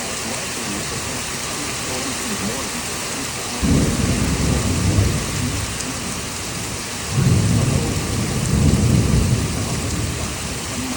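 Steady rain with two rolls of thunder. The first starts suddenly about three and a half seconds in, the second about seven seconds in, and each rumbles for two to three seconds.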